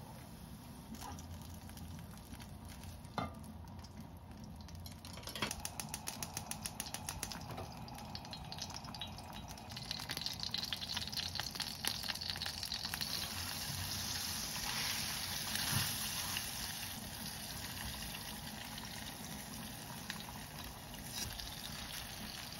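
Wooden spoon stirring and scraping doenjang (soybean paste) through a mesh strainer into anchovy broth, a quick rhythmic scraping from about five seconds in. From about ten seconds on there is a steady sizzling hiss of the stew at a rolling boil and the hot pan on the stove.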